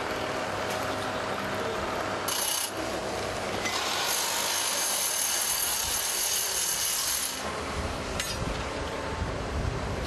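SOOSAN STD11 hydraulic crawler drill rig running through a rod change: its diesel engine and hydraulics run steadily, with a louder hissing stretch from about four to seven seconds in and a deeper rumble after it.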